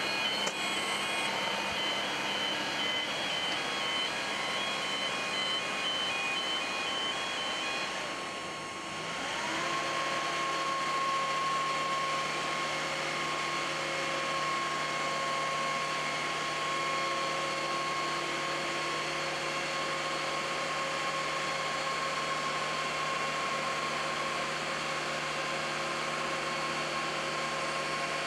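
Steady mechanical whirr of ramp equipment beside an MD-11 freighter, with a repeating high beeping for the first eight seconds or so. About nine seconds in, a motor whine spins up quickly and then holds steady as the main-deck cargo door swings open.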